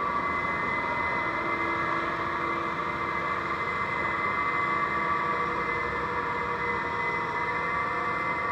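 A Case IH Magnum 380 Rowtrac tractor's diesel engine runs steadily as the tractor drives on its rear tracks, with a steady high whine over the engine note.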